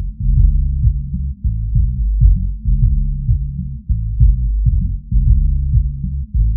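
Bass-boosted electronic music low-pass filtered so that only deep bass and sub-bass remain: sustained bass notes shifting in pitch over a steady kick-drum pulse, with nothing heard above the low end.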